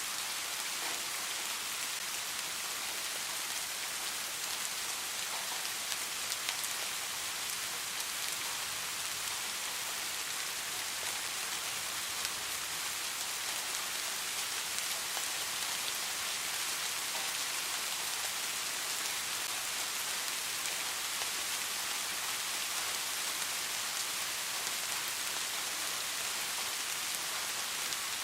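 Steady rainfall: an even hiss of rain with faint scattered drop ticks, and no thunder.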